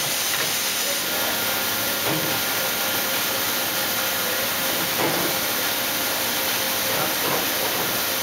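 Ikegai NB130P CNC horizontal boring mill running an automatic tool change: a steady hiss with a faint steady whine underneath, and a few soft knocks as the tool-change arm moves tools away from the spindle.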